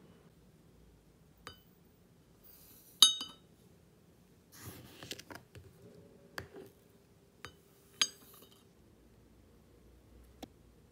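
Ceramic teacup and glass sugar jar clinking while sugar is put into the cup. A sharp ringing clink about three seconds in is the loudest, and another comes near eight seconds. Lighter taps and a brief gritty rustle fall between them.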